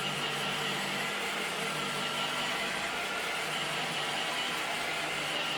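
iRobot Roomba 650 robot vacuum running: a steady whirr and hum from its vacuum motor and spinning brushes, unchanging throughout.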